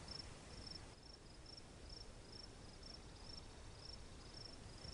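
Cricket chirping faintly: a regular run of short, high chirps, roughly two to three a second, over a low background hiss.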